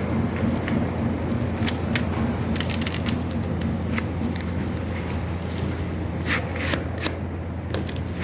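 Masking tape being pulled and pressed around a sheet-metal duct joint: irregular crackles and clicks. A steady low hum from a machine runs underneath.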